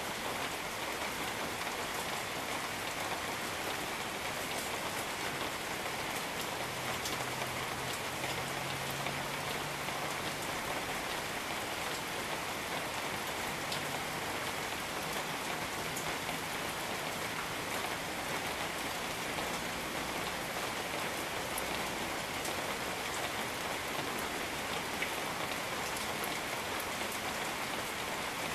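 Steady rain falling on rainforest foliage: an even hiss of rain with scattered sharper clicks of single drops.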